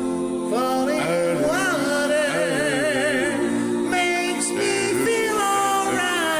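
Multitracked a cappella male vocals, one singer layering every part: held harmony chords under a lead line that glides and wavers with vibrato about two seconds in.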